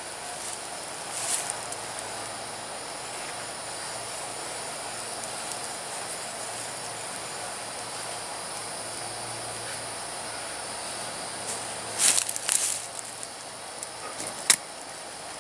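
A steady, high-pitched insect chorus drones throughout. Over it come short rustles and clicks of hammock tree-strap webbing and buckle being handled, loudest about twelve seconds in, with one sharp click near the end.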